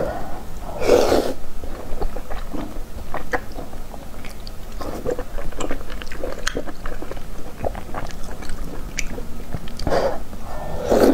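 Close-miked chewing of soft, fatty braised pork mesentery fat (鸡冠油) in chili oil: many small wet clicks and smacks, with two louder slurps, about a second in and near the end.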